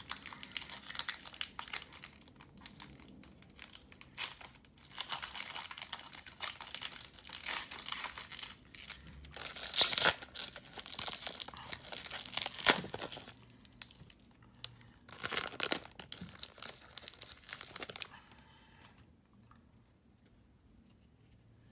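Foil trading-card pack, a Panini Prizm basketball pack, being torn open and crinkled by hand. The crackling rustles come in irregular bursts, the loudest about ten seconds in, and stop about eighteen seconds in.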